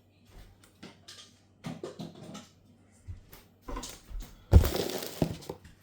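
Handling and unpacking noises: a series of light knocks and clicks, then a louder scraping rustle about four and a half seconds in. A faint steady low hum runs underneath.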